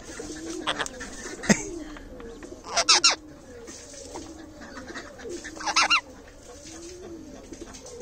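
Caged ring-necked parakeet giving short loud calls three times, a few seconds apart, with a sharp click between the first two. A low, humped call repeats about once a second underneath.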